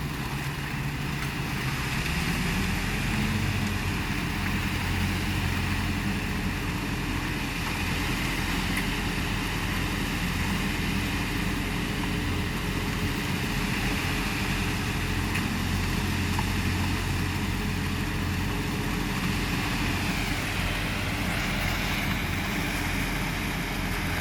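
A vehicle engine running steadily. Its pitch climbs about two seconds in, then holds.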